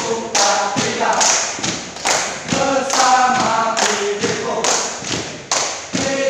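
A group of men chanting a yel-yel cheer in unison, over rhythmic thumps of stamping feet and claps keeping the beat at about two a second.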